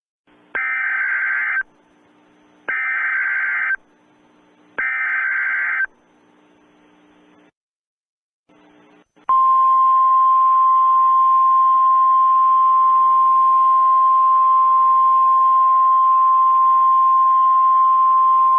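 Emergency Alert System SAME header: three one-second bursts of screeching digital data tones, about a second apart. After a short pause comes a single steady alert tone of the 1050 Hz weather-radio kind, held about nine seconds, over a faint hiss.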